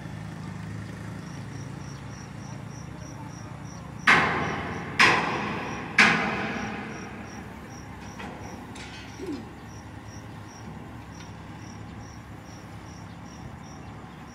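Three loud, ringing metallic bangs about a second apart, each dying away slowly, over the steady low running of a mobile crane's engine. A faint high-pitched chirp repeats about three times a second through most of it.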